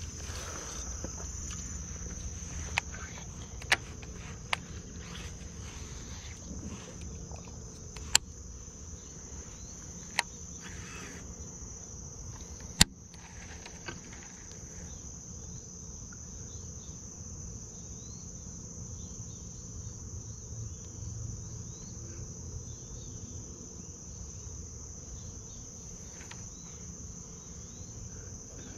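Insects droning steadily at one high, unbroken pitch. Over it, in the first half, half a dozen sharp clicks and knocks from fishing rods and a baitcasting reel being handled.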